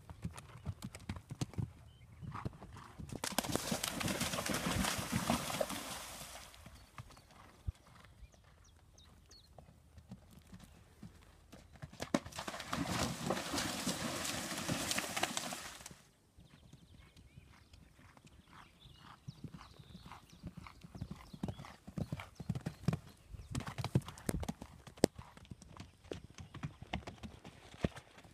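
Hoofbeats of a ridden horse cantering over turf, heard as separate thuds. About halfway through come several seconds of loud splashing as the horse canters through a water jump, and a similar loud rushing stretch comes a few seconds in.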